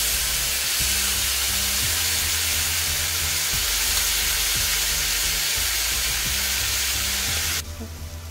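Boiled tapioca pieces sizzling in hot oil in a kadai with a tempering of mustard seeds, chillies and curry leaves: a loud, steady frying hiss that stops suddenly near the end.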